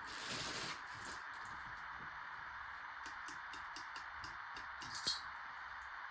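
Ceiling fan parts being handled: a brief rustle at the start, then a run of light clicks and clinks, with one sharper click about five seconds in, over a steady background hiss.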